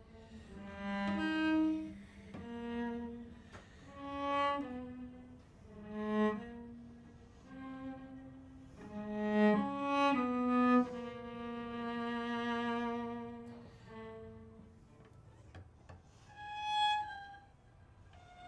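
Solo cello played with the bow: a series of phrases that swell and fade, with a longer held note past the middle and a higher, quieter note near the end.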